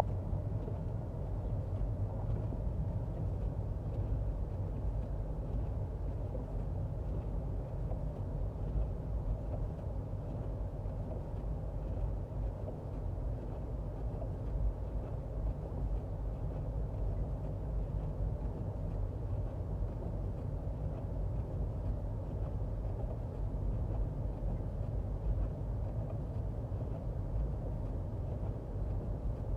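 Steady low rumble of road and tyre noise inside the cabin of a Toyota Prius driving on a road covered with a thin layer of snow.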